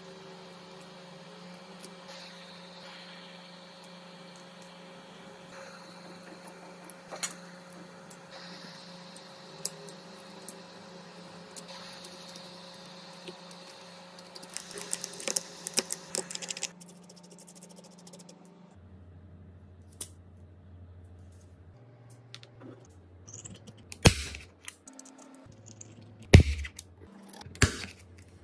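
Small clicks, taps and scraping of hand tools working on a phone, over a steady machine hum that stops about two-thirds of the way through. A few sharp knocks come near the end.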